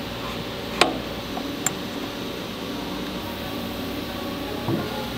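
Steady fan-like hum of a shop room, with a few sharp metallic clicks as steel tooling parts are handled: the loudest about a second in, a fainter one shortly after, and a dull knock near the end.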